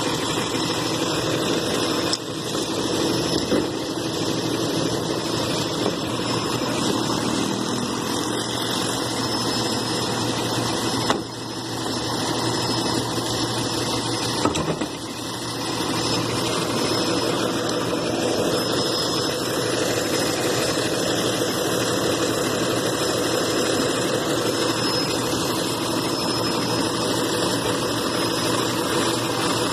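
Garbage truck engine idling steadily, with a few brief knocks over it.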